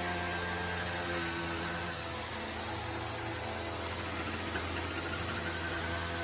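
Petrol pressure washer engine running steadily at a constant speed.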